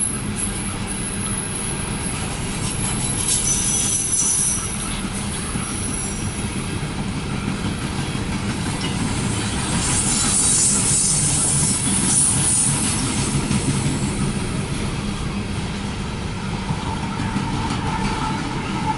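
Empty freight train's cars rolling past with a steady rumble, the wheels squealing high a few seconds in and again around the middle.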